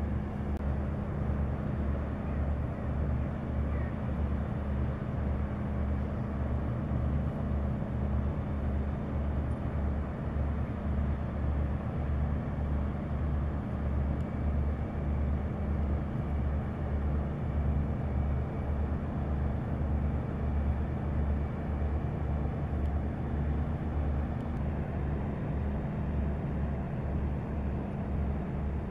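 A passing ship's diesel engine running steadily: a low, regular throbbing beat over a steady hum and a wash of noise.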